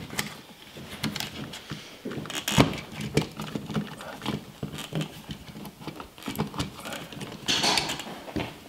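Scattered plastic clicks, taps and rustling of hands handling a thermostat and its wires at a wall electrical box, with a sharper knock about two and a half seconds in.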